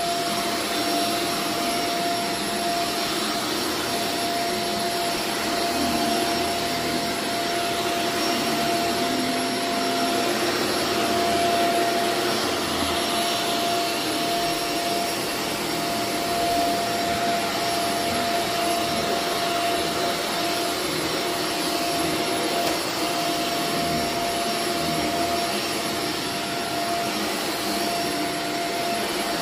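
A carpet-cleaning vacuum motor running steadily: a constant rushing hiss with a steady whine in it.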